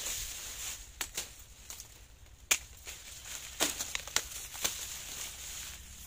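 Dry sugarcane leaves and stalks crackling and rustling as cane is cut and handled in a harvested field, with several sharp cracks. The loudest crack comes about two and a half seconds in, and a quick cluster follows a second later.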